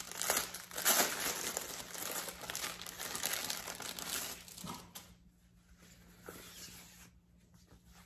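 Clear plastic packaging bag crinkling and crackling as it is worked open by hand and a silk scarf is pulled out. The crinkling stops about four and a half seconds in, leaving only faint rustles.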